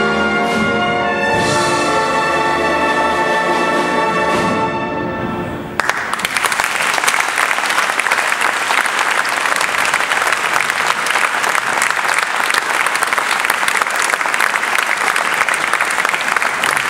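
Concert wind band holding a final sustained chord that stops abruptly about six seconds in, followed by steady audience applause.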